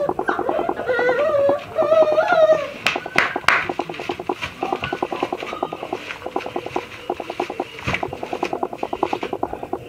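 Doberman puppies whining, wavering high cries for the first few seconds, then two sharp knocks and a fast, continuous scratching as they clamber about in a plastic laundry basket.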